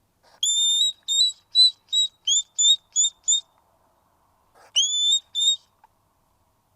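Hedgehog squeaking in high, whistle-like calls. One longer squeak that slides up and holds is followed by a run of about eight short squeaks, roughly three a second. After a pause come two more squeaks.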